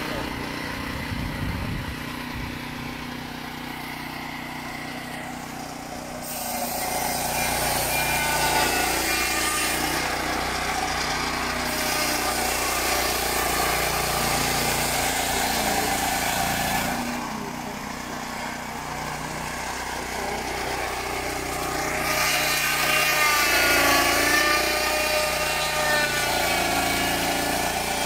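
Junior Peterson swingblade sawmill running on its 13.5 horsepower Briggs & Stratton engine, its circular blade cutting through a log. The cutting noise swells from about six seconds in, eases off around seventeen seconds, and swells again from about twenty-two seconds, the pitch wavering as the blade works under load.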